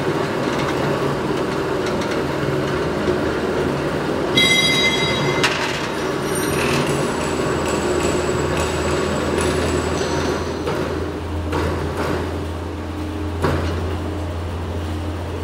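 Three-roll plate bending machine running, its electric motor and rollers giving a steady mechanical hum as a steel sheet is rolled into a cylinder. A brief high metallic ring sounds about four and a half seconds in, and the plate gives a few knocks later on.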